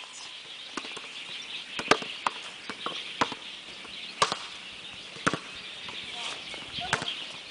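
A volleyball being passed and set back and forth: a string of sharp slaps of the ball against players' forearms and hands, about one a second, over a steady high hiss.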